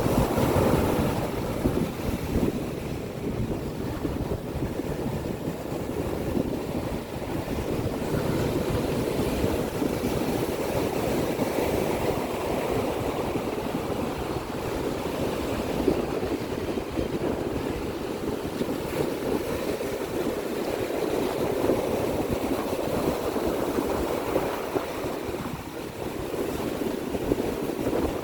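Ocean surf washing ashore in a continuous rush that swells and eases every several seconds, with wind buffeting the microphone.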